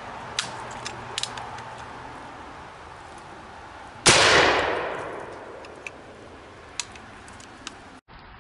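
A single black-powder gunshot about four seconds in from a short-barrelled percussion canoe gun, a smoothbore loaded with 65 grains of FFG powder and a bare .690 round ball; the report is very loud and dies away over about a second. A few light clicks come before it.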